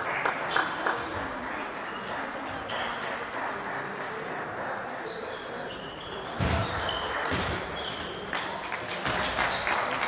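Table tennis ball repeatedly clicking off paddles and the table, with a few short high pings, over a background of chatter in a large hall.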